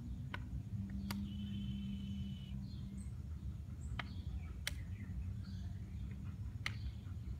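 Muffled underwater sound picked up by a camera submerged in a swimming pool: a steady low rumble with a few sharp clicks and a brief steady hum from about one to three seconds in.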